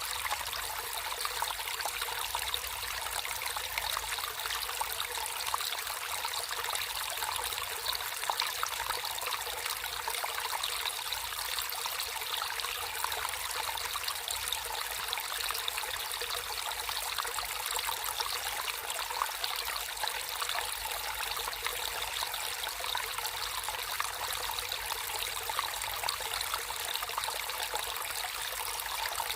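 Natural running water trickling and splashing steadily, a bright fine splashing with little low rumble.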